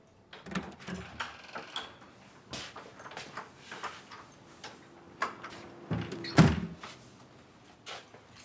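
A door being handled: a run of latch and lock clicks and knocks, with a heavy thump about six and a half seconds in as the door is shut.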